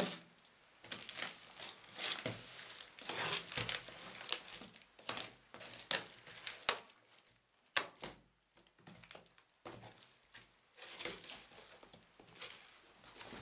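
Packing tape on a cardboard box being slit with a box cutter and torn away, and the box flaps pulled open, with crinkling of tape and plastic. Short, irregular rasps and tears, with a quieter pause about halfway through.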